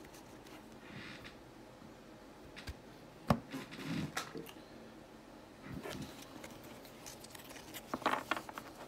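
Trading cards and card packs being handled: scattered light taps and rustles, a sharp tap about three seconds in, and a short burst of cards being flicked through near the end.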